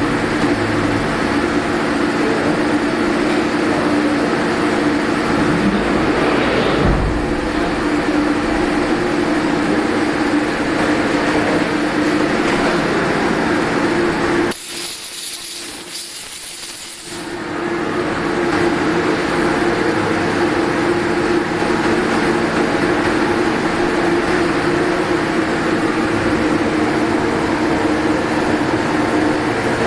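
CNC lathe running steadily with a constant machine hum and a held low tone. About halfway through, the low hum drops away for a couple of seconds while a high hiss sounds, then the hum returns.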